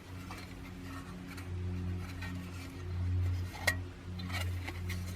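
A few light metallic clinks of small metal stove parts and cookware being handled, the clearest about three and a half seconds in, over a low steady hum.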